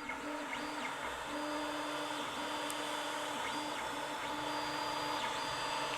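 Creality Ender 5 3D printer's stepper motors whining as the print head moves, in runs of about half a second to a second that stop briefly and start again, while it prints a layer.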